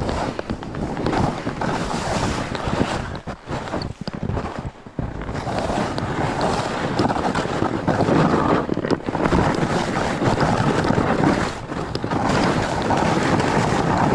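Snowboard carving down snow, the board scraping over the surface while wind buffets the camera microphone; the rushing noise swells and fades with the turns and drops away briefly twice in the first third.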